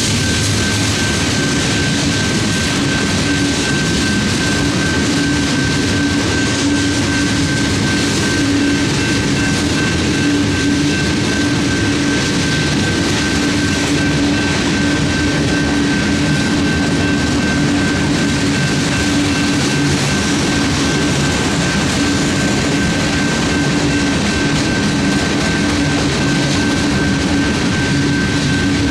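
Freight train cars rolling steadily past a grade crossing: a continuous loud rumble of wheels on rail, with a steady high tone running through it.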